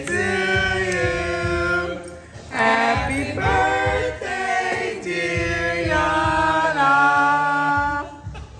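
A group of voices singing a birthday song together without instruments, in long held phrases with brief breaks about two seconds in and near the end.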